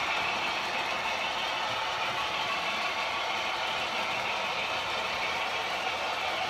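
HO scale model freight train rolling past on the layout: a steady rolling noise of the cars' wheels on the rails.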